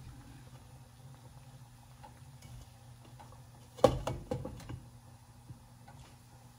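Kitchenware clattering about four seconds in: one sharp knock followed by a few lighter clinks, over a steady low hum.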